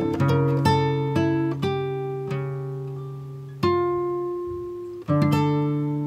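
Background music: a slow instrumental of plucked strings, each note or chord struck sharply and left to ring out and fade, with two longer ringing chords in the second half.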